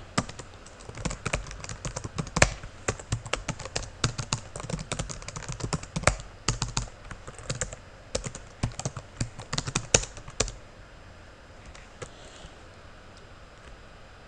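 Typing on a computer keyboard: quick, irregular keystrokes in short runs, stopping about ten seconds in.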